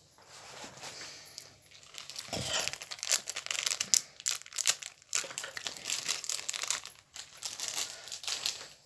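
Plastic and paper packaging crinkling and tearing as a toy doll's accessory packets are unwrapped by hand. It is faint at first and gets busier and louder about two seconds in, with brief pauses.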